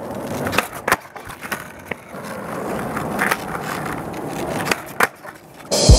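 Skateboard wheels rolling over asphalt: a steady rough rumble with a few sharp clicks and knocks. A brief loud rush of noise comes just before the end.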